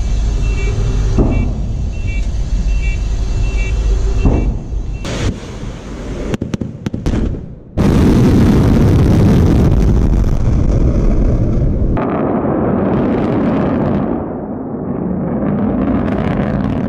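Russian ballistic missile launch: a low rumble with a short high beep repeating about twice a second, a few crackles, then about eight seconds in the rocket motor ignites with a sudden loud blast and settles into a continuous roar, which turns thinner and wavering after about twelve seconds as the missile climbs.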